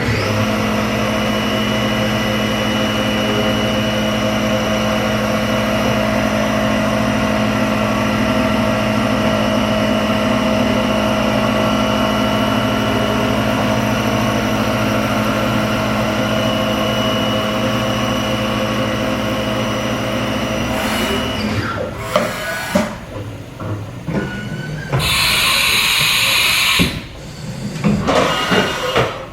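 Haas VF-5 CNC vertical machining center running: a steady machine hum with several fixed whining tones. About 21 seconds in it breaks up into irregular clunks, with a hiss lasting about two seconds near the end.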